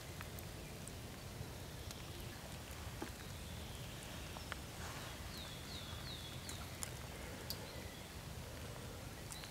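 Quiet forest ambience: a steady low background with scattered faint clicks, and a bird calling four quick, falling notes about halfway through.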